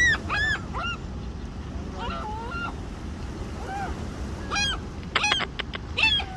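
Gulls calling: a run of short, arched squawks in quick succession at the start, a few scattered ones in the middle, and another burst of calls near the end, over low wind and surf noise.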